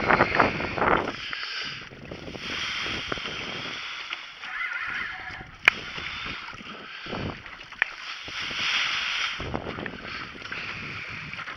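Choppy water sloshing and splashing against the hull of a small aluminum boat, with a few sharp knocks, the loudest about halfway through.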